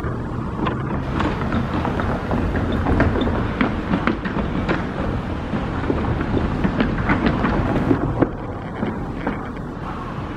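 Kintetsu Kyoto Line train running past close by: a loud rumble with rattling and clicking from the wheels and car body. It dies down about eight seconds in.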